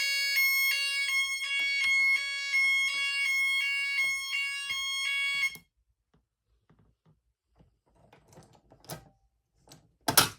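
12-volt fire alarm siren sounding a high electronic tone that pulses about twice a second, then cuts off abruptly a little past halfway as the siren is switched off. Faint handling noises follow, with a couple of sharp clicks near the end.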